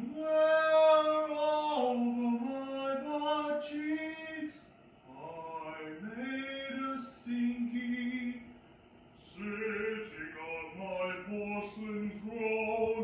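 A man singing in long held notes, in three phrases with short pauses about four and a half and nine seconds in.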